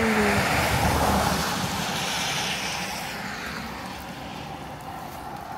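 A vehicle passing on a wet road: a loud hiss of tyres on wet pavement that sets in suddenly, then slowly fades away over the next few seconds.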